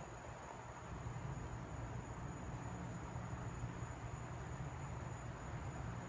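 Night insects calling: a steady high-pitched trill throughout, with short higher chirps every couple of seconds and a fast run of rapid pulses in the middle, over a low steady rumble.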